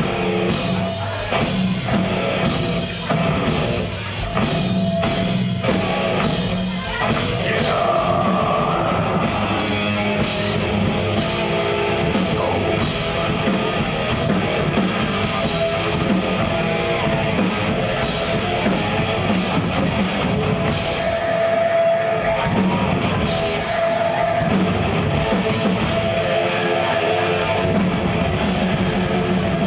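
A progressive death metal band playing live: distorted guitars and a drum kit, loud and dense. The first several seconds are choppy and stop-start, then the playing runs on continuously.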